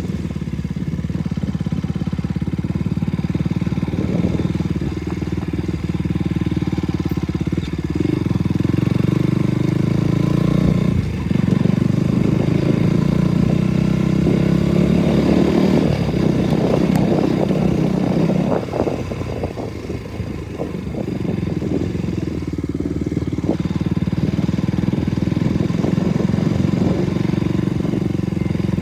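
KTM RC 200's single-cylinder engine running steadily under way as the bike is ridden over rough ground. The engine eases off briefly about two-thirds of the way through, with scattered knocks and rattles around then.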